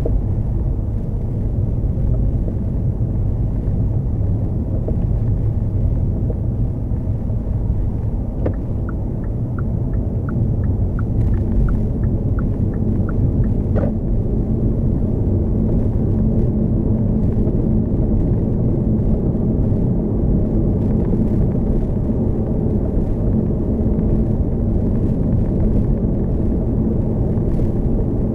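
Steady low rumble of road and tyre noise from a Hyundai Kona Hybrid driving along. In the middle, a run of short, even ticks at about three a second lasts for about five seconds.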